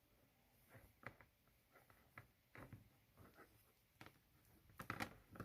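Faint handling noises of a wooden-bead and ribbon garland being fluffed out by hand: scattered soft rustles and small clicks, with a louder flurry near the end.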